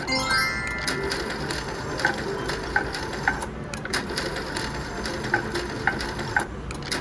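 Slot machine spinning. A quick run of electronic chime tones comes right at the start, then sharp clicks with short beeps at uneven intervals as the reels play out. Steady casino-floor noise runs underneath.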